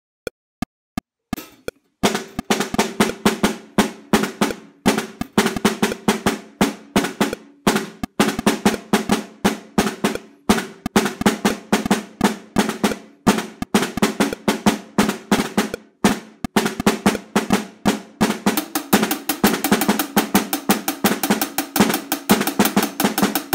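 Four evenly spaced clicks count in. Then a snare drum is played with wooden sticks in a fast drum-and-bass pattern at 170 BPM: backbeats on 2 and 4 with anticipations and rebound strokes after each main hit. The strokes come thicker near the end.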